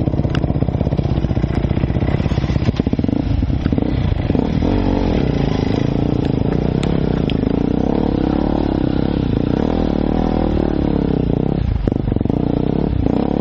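Enduro dirt bike engine running under the rider along a rocky trail, chugging at low revs at first, then with revs rising and falling from about four seconds in. A few sharp clicks come through as well.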